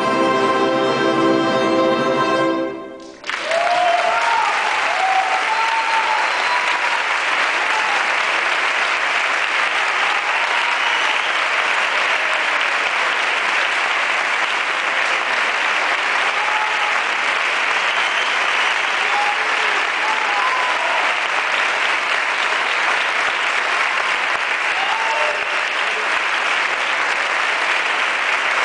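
Wind band with solo bass trombone holding a final sustained chord that cuts off about three seconds in. An audience then applauds steadily.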